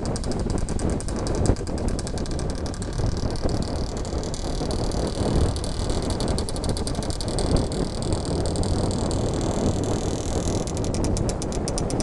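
Steady running noise of a car driving at town speed, heard from inside the car: engine and road rumble.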